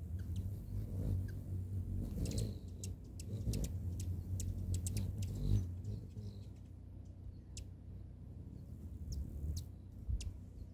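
Hummingbirds' wings humming as two birds hover and chase around a nectar feeder, with scattered short, high-pitched chip calls. The hum fades about six seconds in as one bird settles on the perch to feed, and returns briefly near the end.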